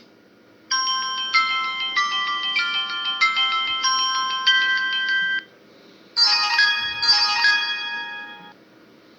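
Ringtones playing on a Samsung U900 Soul mobile phone. First comes a chiming synthesized melody of held notes for about five seconds. After a short pause, a second, shorter melody starts and fades out.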